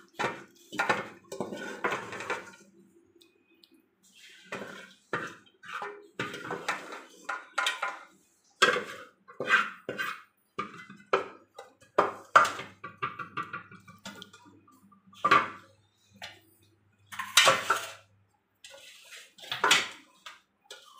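Metal cooking pots and utensils clinking and clattering in irregular knocks.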